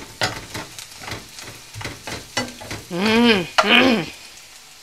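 Wooden spatula stirring and scraping sliced onions, garlic and curry leaves sizzling in oil in a non-stick frying pan, with frequent clicks of the spatula against the pan as the onions fry crisp. A woman's voice sounds briefly about three seconds in.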